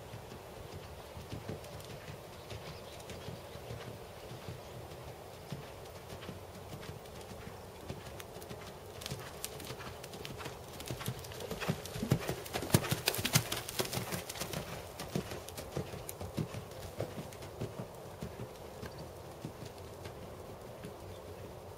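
Hoofbeats of a Percheron/Thoroughbred gelding cantering over a sand-and-dirt arena, a steady rhythm of muffled thuds that grows loudest about twelve to fourteen seconds in as the horse passes close, then fades.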